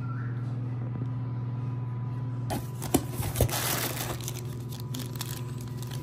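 A steady low hum. About two and a half seconds in it gives way to the crinkling and rustling of pink plastic bubble-wrap packaging being pulled out of a cardboard box.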